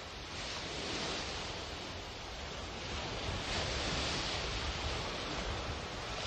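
Sea surf washing: a rushing noise that swells twice and grows slowly louder.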